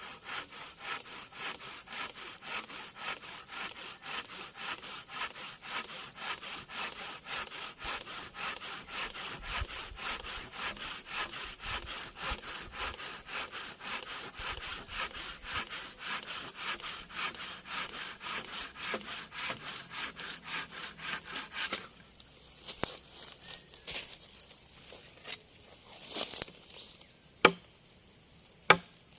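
Hand saw cutting through wood in steady back-and-forth strokes, about three a second. The sawing stops about three quarters of the way through, and a few sharp knocks follow.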